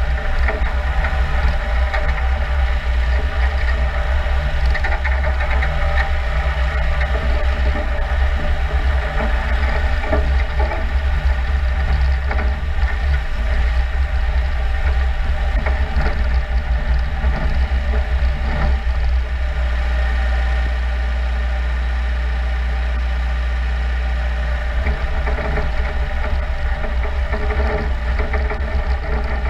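Jarcrac Dual small tracked forest machine driving through snow: its engine running steadily, with the rattle of its rubber tracks and running gear over a deep, constant low hum.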